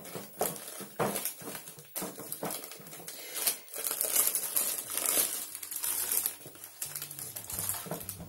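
Thin clear plastic sheet crinkling and rustling irregularly as it is rubbed down with a cloth over a glued paper napkin, smoothing the napkin flat to press out air bubbles; near the end the plastic is lifted away.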